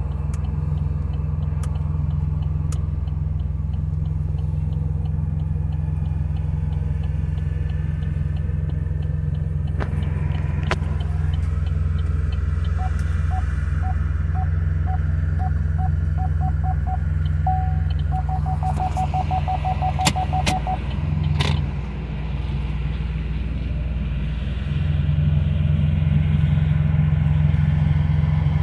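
Chevrolet Onix's engine running at low speed while reversing, heard from inside the cabin as a steady low hum. The rear parking sensor starts beeping about 13 s in, the beeps quicken as the car closes on the obstacle behind, then turn into an almost unbroken tone for about three seconds and stop around 21 s. A few sharp clicks come in between.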